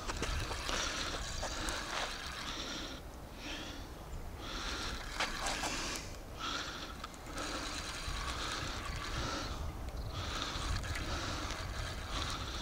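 Spinning reel being cranked in spells of a second or two with short pauses, retrieving line with a hooked trout on, over a steady low wind rumble on the microphone.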